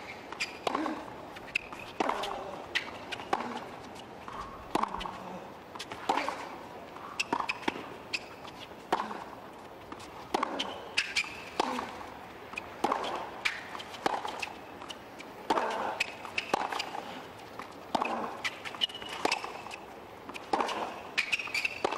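Tennis ball struck back and forth by rackets in a long rally on a hard court. Each racket hit and ball bounce is a sharp pop, coming roughly once a second.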